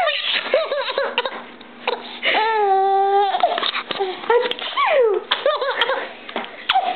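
A baby laughing in quick bursts of rising and falling giggles, with one longer held squeal about two and a half seconds in.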